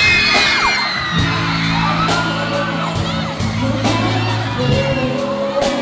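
Live concert sound: an amplified pop ballad with sustained low chords and a steady beat, a male singer on a handheld microphone, and high screams and whoops from fans, loudest right at the start.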